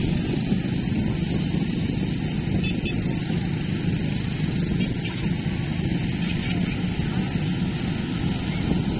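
Wind buffeting the microphone outdoors: steady low noise without breaks.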